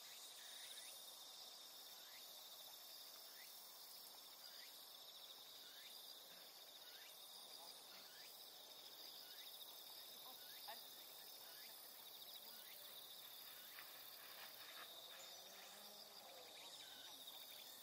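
Faint insect chorus, crickets or similar: a steady, high, pulsing trill, with short chirps repeating every half second or so.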